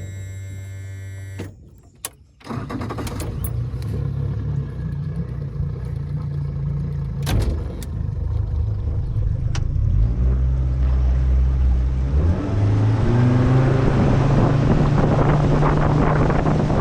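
Boat motor running under way, its pitch stepping up about ten seconds in and again a couple of seconds later as it speeds up, with rushing wind and water noise building toward the end.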